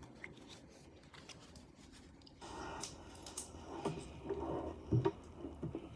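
Handling of a plastic jelly cup: its peeled plastic film lid crinkles and rustles, with small clicks of a metal spoon against the cup. It is faint at first and grows louder about two and a half seconds in.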